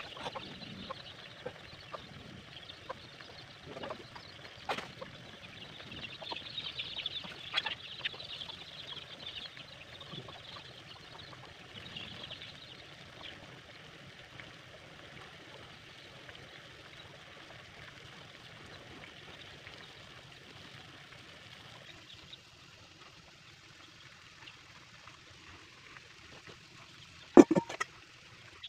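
Water at a rolling boil bubbling steadily in an aluminium pot, with an egg poaching in a ladle held in it. Scattered small clicks, and a sharp knock near the end.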